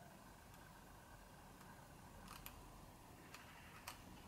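A few faint, sharp clicks over near silence: a tiny camera screw being turned backwards with a small spectacles screwdriver until its thread drops into place in the hole, the click that shows the thread is lined up before screwing it in.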